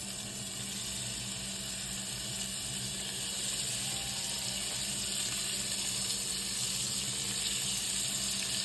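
Shrimp sizzling in hot bacon grease in a frying pan: a steady hiss that grows a little louder a few seconds in, over a faint steady low hum.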